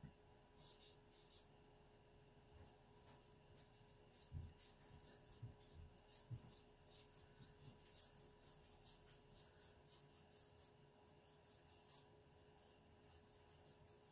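Faint, soft scratchy swishes of a pointed round watercolour brush flicking short, light strokes across watercolour paper, many in quick succession.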